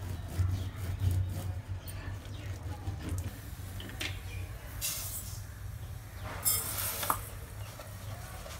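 Wooden rolling pin pressing and clicking over a sheet of peanut-jaggery chikki on a board. About five seconds in comes a short hissing rush of granulated sugar poured into a kadai, and a second, longer rush follows a second or so later.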